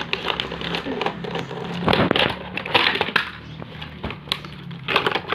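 Robocar Poli plastic transforming toy car being handled and opened up: a string of irregular plastic clicks, snaps and rattles as its parts are moved.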